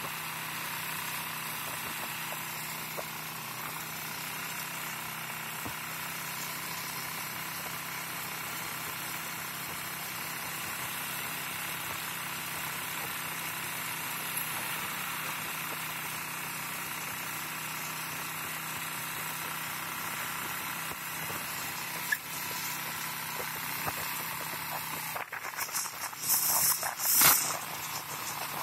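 Motorcycle tricycle under way, its small engine running steadily under road noise, heard from the sidecar. About three seconds before the end, loud irregular bursts of noise break in over it.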